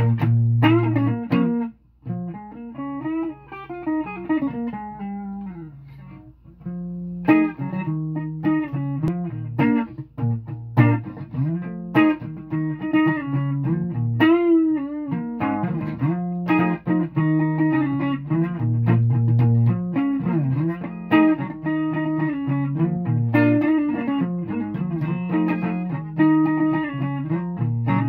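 Guitar music: a plucked guitar plays a melody with bent and sliding notes over low repeated notes. It is quieter for a few seconds near the start, then fuller from about seven seconds in.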